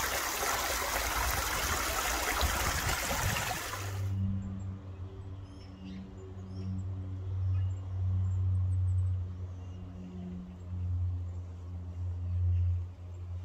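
Small stream running and trickling over stones. About four seconds in, the water noise cuts off suddenly and a low, steady hum with faint overtones takes over.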